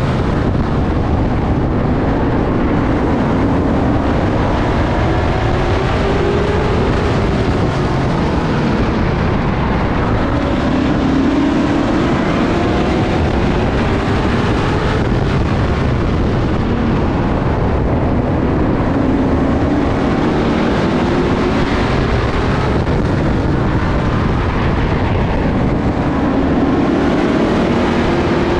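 Street stock race car's engine at racing throttle under load, its pitch rising over a couple of seconds as it accelerates out of each turn and dropping back as it lifts for the next, several times over. Loud and continuous.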